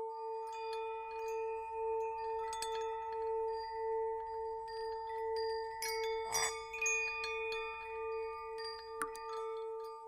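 Ambient music: a steady, slowly pulsing drone like a singing bowl under scattered high, ringing chime notes, with a denser cluster of chimes about six seconds in.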